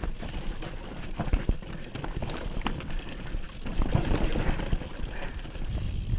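YT Capra enduro mountain bike descending a rocky trail: tyres rumbling over rock and dirt, with a quick, irregular clatter of knocks and rattles from the bike as it hits the rocks.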